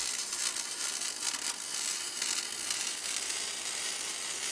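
Electric arc welding of steel: a steady crackling hiss with scattered small pops.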